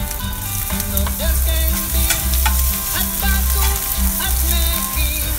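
Chopped garlic sizzling in hot olive oil in a stainless steel skillet, with a spatula stirring and scraping against the pan in scattered clicks. Background music with a steady bass runs underneath.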